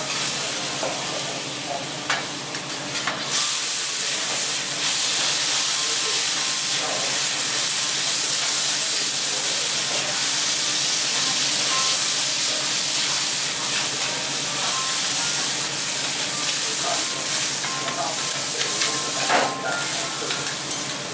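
Food sizzling on a teppanyaki iron griddle: a steady, loud sizzle that swells about three and a half seconds in, with a few sharp clicks of metal utensils.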